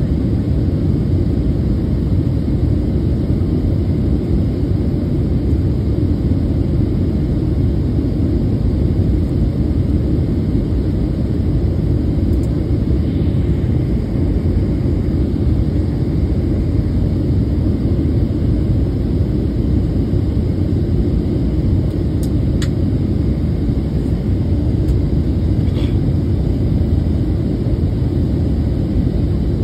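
Steady low rumble of airflow and engine noise inside the cabin of a Southwest Airlines Boeing 737 in flight on its descent.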